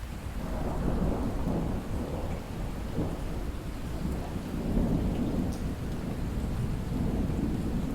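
Distant thunder rumbling over steady light rain and drips. The low rumble builds about half a second in and swells twice, around one second and again around five seconds.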